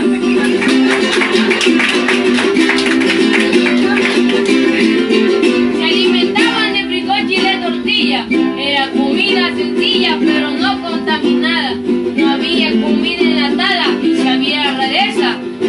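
Instrumental string-band music: small guitars strummed fast and steadily under a high, sliding melody line.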